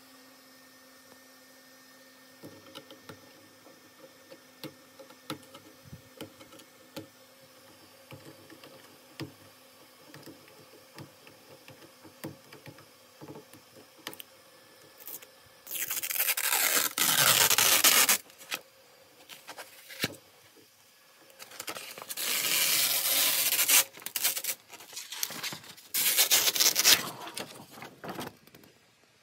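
A thin full-bed first-layer print being peeled off a Prusa XL's print sheet: small crinkles and ticks, then, about halfway through, three loud scraping, tearing rushes of a second or two each as the plastic film comes away.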